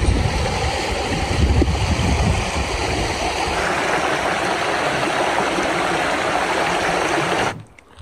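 Shallow mountain stream running over stones: a steady, full rush of water, with a low rumble under it over the first few seconds. It cuts off suddenly near the end.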